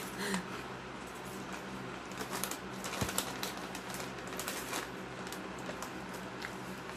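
Crinkly plastic snack bags of Xtra Hot Cheetos rustling and crackling as hands dig into them, mixed with the crunch of chips being eaten. The crackles are irregular and come thickest in the middle, over a steady low hum.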